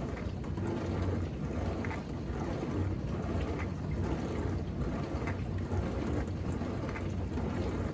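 Bosch dishwasher on its rinse cycle: water spraying and sloshing steadily inside the tub with a low hum beneath it. The smooth, even flow is the sign that the drain blockage has been cleared.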